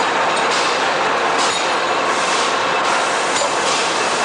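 Steady din of metalworking machines on a pliers production line, a continuous clattering hiss with no pauses.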